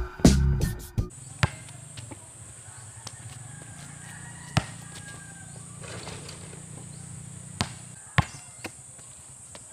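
Basketball knocking on an outdoor concrete court: a few sharp single thuds spaced seconds apart, one as the shot reaches the hoop, then three bounces in quick succession near the end. Music stops about a second in.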